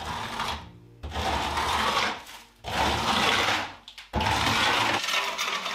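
A flat hand tool scraped across a rough plaster wall in four long strokes of about a second each, with short pauses between them.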